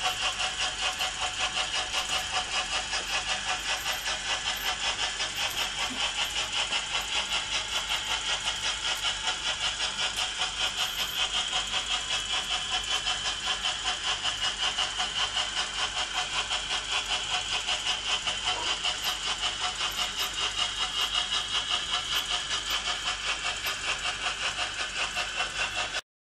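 H0-scale Märklin model freight train running past, its wheels clattering along the metal track in a fast, even rhythm. The sound cuts off suddenly near the end.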